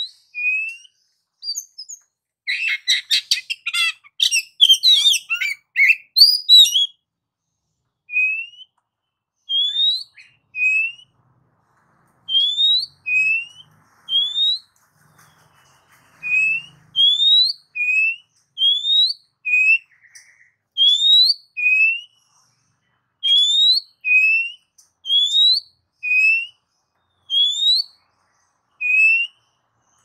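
Oriental magpie-robin (kacer) singing continuously. About two seconds in comes a burst of rapid, varied notes, followed by a string of short rising whistles repeated about once a second.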